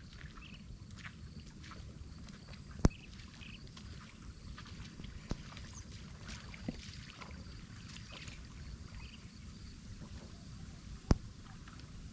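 Water sloshing and splashing over a steady low rumble, broken by two sharp knocks, one about three seconds in and one near the end.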